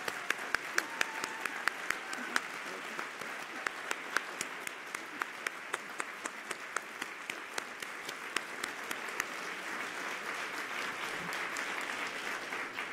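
Audience applauding, with single sharp claps standing out for the first several seconds. The applause dies away at the end.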